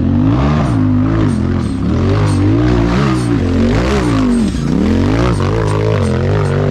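Side-by-side UTV engine revving up and easing off again and again, its pitch rising and falling about once a second.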